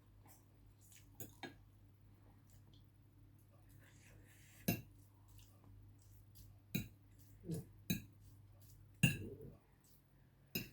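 Eating utensils clinking against dishware, about eight separate sharp clinks spread over the stretch, the loudest about nine seconds in, over a faint low steady hum.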